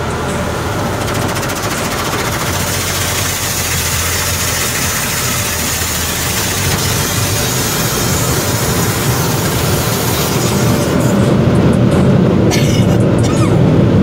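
Automatic car wash water spray drumming on the pickup's windshield and body, heard from inside the cab as a loud, steady hiss. About ten seconds in, the hiss thins and a lower rumble of the wash machinery takes over, with a sharp knock a couple of seconds later.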